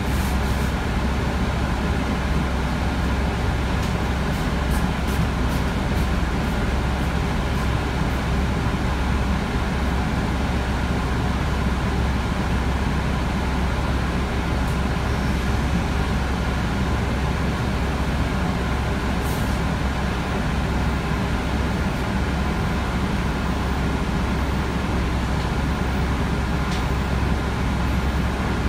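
Mercedes-Benz O405G articulated bus's diesel engine running, heard from inside the passenger cabin as a steady low drone with road and cabin rumble.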